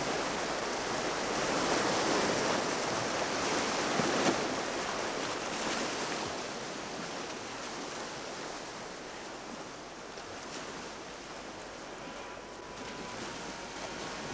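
Sea surf: waves washing in as a rising and falling hiss, louder in the first half and easing off later. A faint steady tone comes in near the end.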